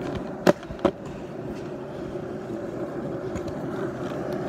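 Penny board's small wheels rolling steadily over a concrete driveway, a continuous rumble, with two sharp clacks within the first second.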